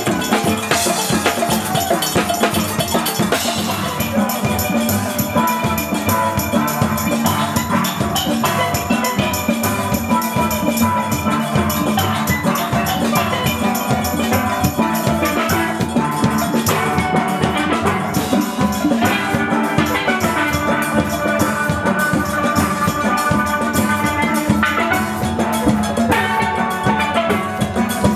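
Steel band playing: many steel pans ringing out melody and chords together over drums that keep a steady beat.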